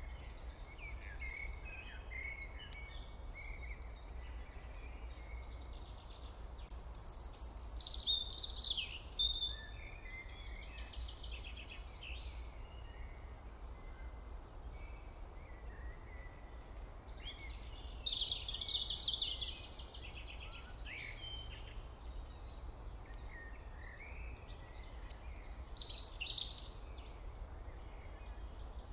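Small birds chirping and singing in scattered high trills and tweets, loudest in a few clusters about a quarter of the way in, past the middle and near the end, over a steady low hum.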